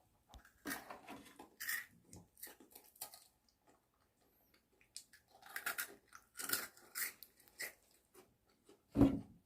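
Chocobi, a crunchy chocolate corn-puff snack, being bitten and chewed: irregular crackly crunches in two spells. A brief louder voice sound near the end.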